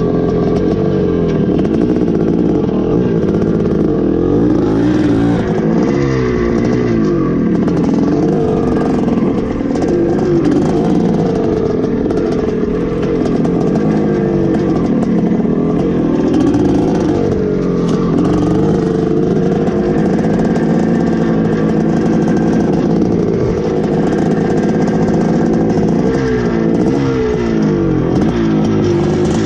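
A 1981 Suzuki RM465's big-bore single-cylinder two-stroke engine being ridden hard, its pitch rising and falling again and again as the throttle opens and shuts and the gears change.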